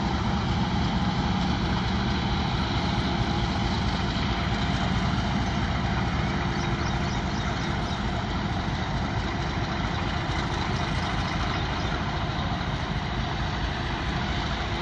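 Diesel locomotive engine running, a steady low drone with no change in level.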